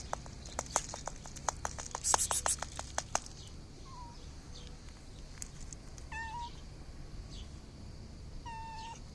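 A mother cat giving short, pitched chirping meows three times, about two seconds apart, calling her kittens. In the first three seconds, a quick run of sharp clicks and short hissing bursts comes before the calls.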